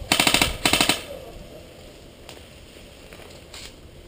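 Airsoft gun firing two short bursts of rapid full-auto fire in quick succession, each a fast string of sharp clacks. Two faint single cracks follow later.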